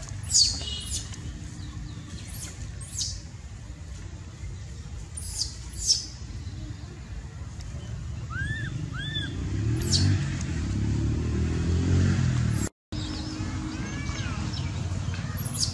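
Short, high-pitched animal calls, often in pairs, each sliding down in pitch, with two arched calls about eight and a half seconds in. A low rumble builds from about eight seconds in and cuts off abruptly just before thirteen seconds.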